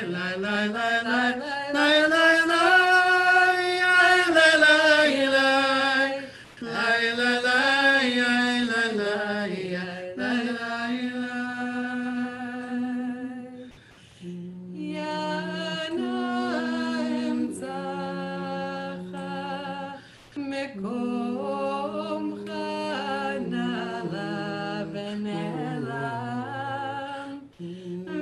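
A solo voice sings a slow, unaccompanied High Holiday prayer melody. It holds long notes and glides smoothly between pitches, with a short break about halfway through.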